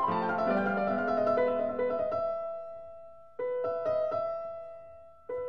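Background piano music: a run of notes, then single chords struck about three and a half seconds in and again near the end, each left to ring and fade.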